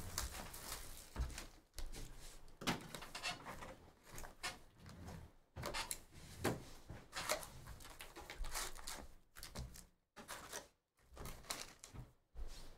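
Handling noises of a sealed trading-card hobby box being opened: irregular rustling and scraping of cardboard and wrapping, with a few soft knocks.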